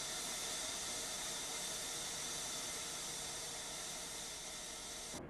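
A steady, even hiss with no rhythm or clatter, starting and cutting off abruptly.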